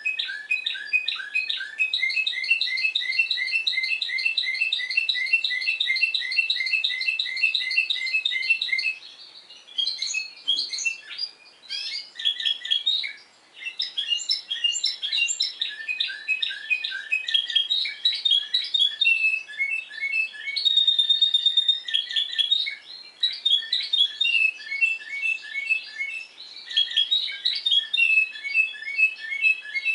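Spanish Timbrado canary of the discontinuous-song type singing: fast rolls of short repeated notes, broken by brief pauses, with one held note about two-thirds of the way through.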